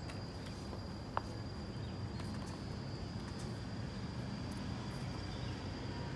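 Outdoor ambience: a steady low rumble under a thin, steady high-pitched insect drone, with a single sharp click about a second in.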